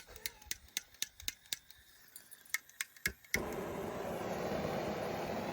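Gas torch igniter clicking a dozen or so times in quick, uneven succession until the torch lights a little over three seconds in and burns with a steady rushing flame.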